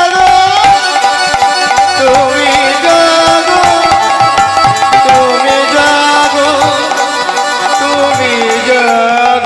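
Instrumental kirtan music: a held melody line that bends gently in pitch over steady hand-drum strokes.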